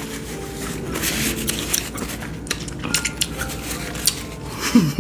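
Irregular clicks, taps and crackles of crab legs and shells being handled and broken apart while eating a seafood boil, with light clatter against a dish.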